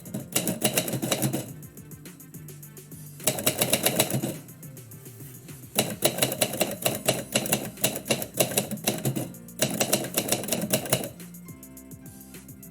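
Typewriter keys struck in quick runs of keystrokes, about four runs with short pauses between, stopping about eleven seconds in; background music plays throughout.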